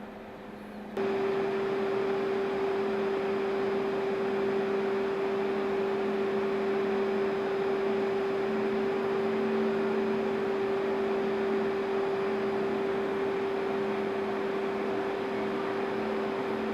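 Boiler-plant machinery running steadily: a loud, even hum with one strong steady tone over a broad hiss. It jumps suddenly louder about a second in and then holds.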